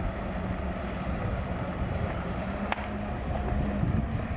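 Radio-controlled scale model torpedo boat running at speed on the water, a steady motor hum over a noisy rush.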